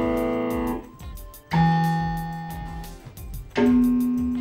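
Casio DG-20 digital guitar sounding sustained synthesized notes, each in a different tone preset. One note cuts off within the first second, a new one starts about a second and a half in and fades away, and another starts near the end.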